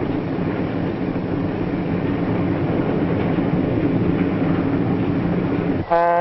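Passenger train running at speed: a steady rumble and rattle of the cars on the track. Near the end the rumble cuts off abruptly and a diesel locomotive's horn starts, a steady chord of several tones.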